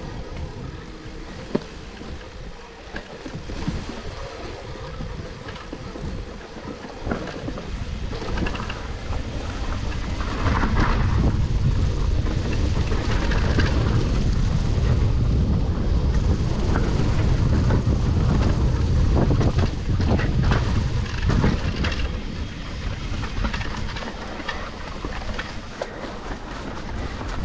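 Wind buffeting the camera microphone while an electric mountain bike rolls fast down a dry, leaf-covered dirt trail, with tyres on dirt and leaves and the bike rattling over bumps. The rush grows louder about ten seconds in and eases after about twenty.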